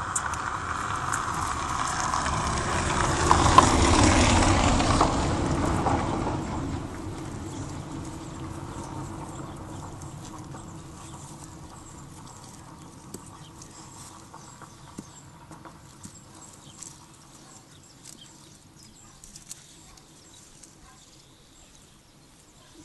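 A rumbling noise swells for about four seconds and dies away over the next few; afterwards only faint scattered taps and scratches.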